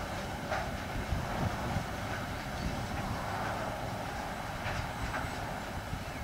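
Freight train's container wagons rolling past at a distance: a steady rumble of wheels on rail, with a few scattered wheel clacks.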